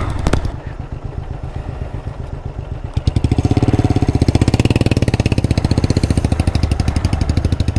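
Motorcycle engine labouring under load up a steep, muddy dirt climb, with a rapid, even pulsing beat that grows louder and steadier about three seconds in.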